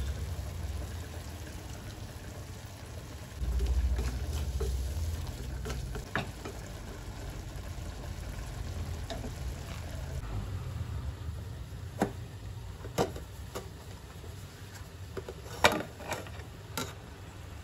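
Onions and chili frying and sizzling in a metal pot, water added and a wooden spoon stirring them, with several sharp metal clinks in the last few seconds as a lid is set on the pot.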